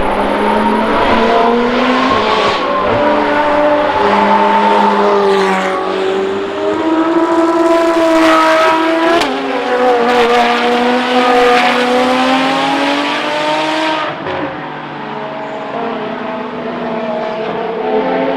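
Ferrari FXX K's V12 engine at racing speed, its pitch climbing and dropping again and again as the car accelerates and shifts gear, then quieter from about fourteen seconds in.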